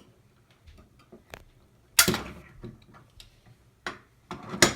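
Clicks and knocks of fire alarm pull stations being handled. A loud knock comes about two seconds in, and a quick run of three clacks near the end.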